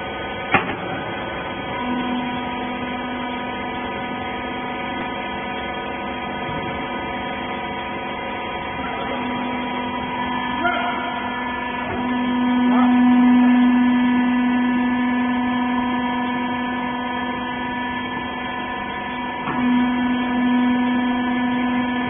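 Hydraulic pump motor of a TCM HBC200 20 kg wiper-rag baling press running with a steady hum. The hum grows louder about halfway through and holds for several seconds as the press works the load, then slowly eases back. A sharp click comes just after the start.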